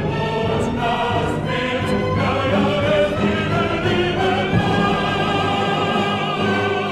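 Operatic chorus singing with a full orchestra, held wavering notes over a dense, steady accompaniment.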